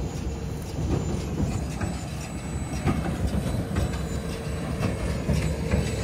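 Big square baler working at close range while baling linseed straw: a steady mechanical rumble with irregular clattering.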